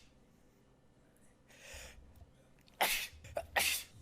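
A person sneezing: two sharp, hissy sneezes under a second apart near the end, after a soft breath in.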